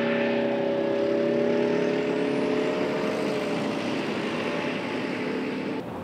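A Toyota High Mobility Vehicle (Kōkidōsha) driving past, its diesel engine running at a steady note over tyre and road noise. It is loudest about a second and a half in, then fades, and drops away abruptly near the end.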